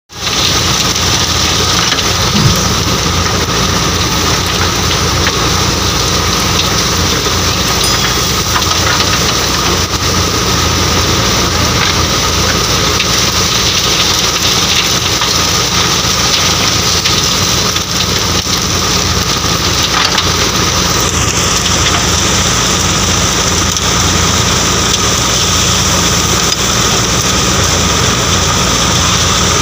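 Threshing machine and a JCB backhoe loader's diesel engine running together, a loud, steady mechanical din as crop is fed into the thresher.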